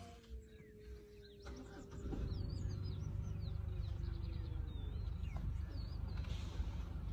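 Birds chirping in short sweeping calls over the low rumble of a vehicle engine idling, which grows louder about two seconds in. Throughout, a long, drawn-out low tone sounds, slowly falling in pitch.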